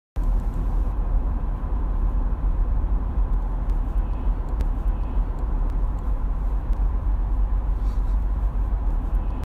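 Steady low rumble of engine and road noise inside a car's cabin while the car is being driven.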